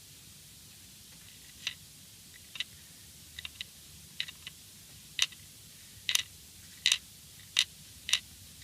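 Light clicks and taps of a small metal nut knocking against the inside of a router's housing as it is lowered on a hair into its chamber. The clicks are few and faint at first, then louder and more regular, about one every three-quarters of a second, in the second half.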